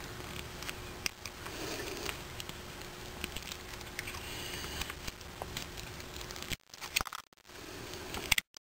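Small knife blade scraping and chipping at the black casing of an old Maytag engine ignition coil, a run of small scratches and clicks as he cuts the coil open.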